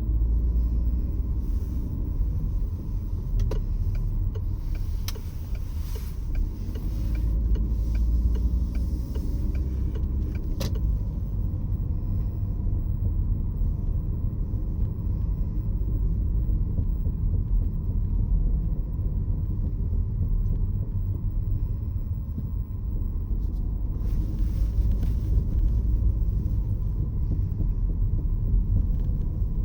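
Peugeot 508 SW driving, heard from inside: a steady low road rumble, with a run of sharp clicks and rattling ticks through the first third and a brief cluster again near the end, the abnormal noise the owner is recording.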